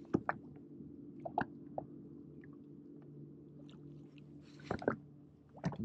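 Quiet handling noise: scattered short clicks and taps, a few louder near the start, in the middle and near the end, over a low steady hum.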